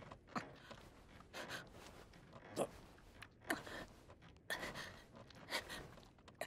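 A woman's breathy gasps and sighs, a run of short breaths coming every half second to a second.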